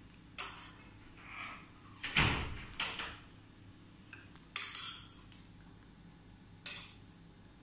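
Metal spoon clinking and scraping against ceramic bowls as sushi fillings are scooped out: about five sharp separate clinks, the loudest about two seconds in with a duller knock under it.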